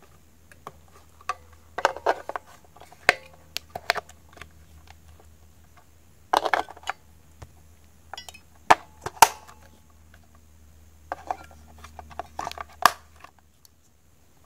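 AAA batteries being pressed into a plastic toy's battery compartment: scattered clicks and light knocks of the cells against the springs and plastic casing, with a few sharper clicks spread through.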